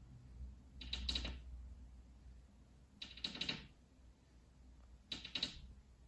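Green-cheeked conure making short, rattling chatter three times, about two seconds apart: the grumbling of a bird annoyed at being filmed.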